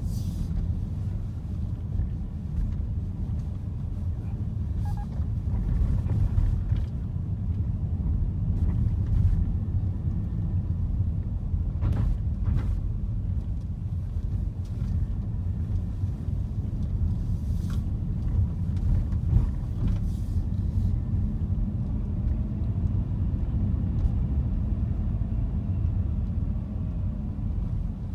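Steady low rumble of a car in motion, road and engine noise heard inside the cabin, with a few brief clicks around the middle.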